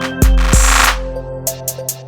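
Background music with an electronic beat: deep bass kicks, a sharp snare hit and sustained synth notes.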